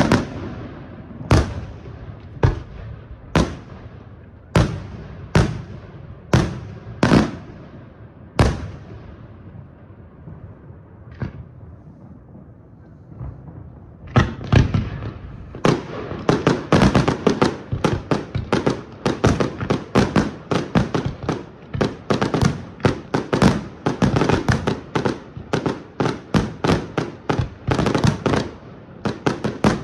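Aerial fireworks display: single loud shell bursts, roughly one a second, for the first nine seconds, then a short lull with a couple of faint bangs, then from about halfway a rapid, dense string of bangs, several a second.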